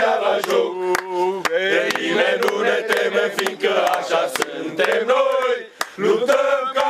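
A group of men singing a football supporters' chant together, loud and unison, with a short break just before the sixth second. Sharp hits punctuate the singing throughout.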